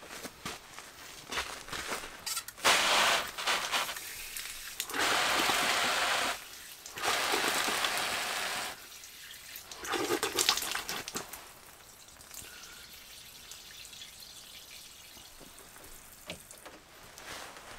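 Water from a portable camping shower head spraying and splashing, switched on in four loud bursts with short pauses, then a softer steady stream as hands are rinsed under it.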